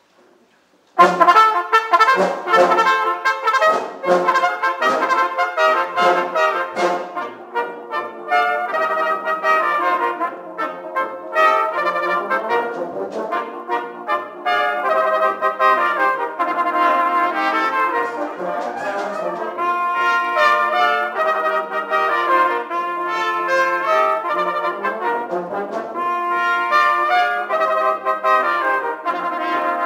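Brass band playing with a trio of cornet soloists, the three cornets playing together over the band. The music starts suddenly about a second in with short, punchy notes, then settles into longer, flowing phrases.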